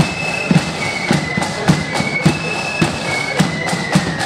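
Marching flute band playing: high flutes carry a melody of held notes over a steady drum beat, with heavy strikes a little under twice a second.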